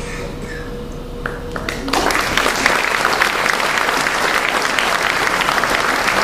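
Audience applauding, starting suddenly about two seconds in after a quieter stretch and then holding steady.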